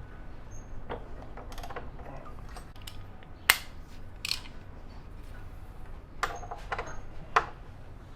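Hand tools working on the motorcycle's front axle bolt: scattered metallic clicks and clinks, the sharpest about three and a half seconds in, with more near the end.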